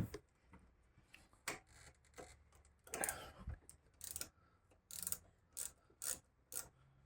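Cable ties being snipped with cutters and handled: a run of sharp, separate clicks and snaps, with a short rustle of handling about three seconds in.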